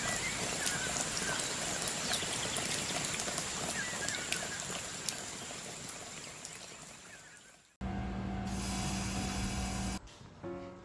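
Rushing water of a river in spate, a steady hiss with birds chirping over it, fading out. About eight seconds in, a loud two-second burst with a held low tone, then music begins near the end.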